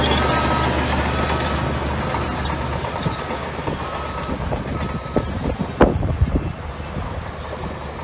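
Shantui bulldozer's diesel engine running, slowly fading, while its reversing alarm beeps about once a second. The beeping stops a little past halfway, followed by a few sharp metal clanks.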